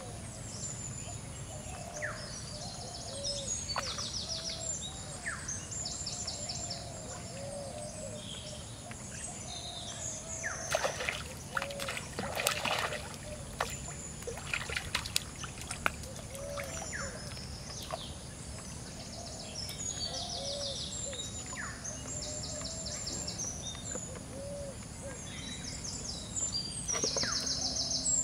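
Birds calling over and over, short arched notes mixed with high buzzy trills. Between about ten and sixteen seconds in comes a run of pond water splashing and sloshing, as a hooked fish is pulled out of the water.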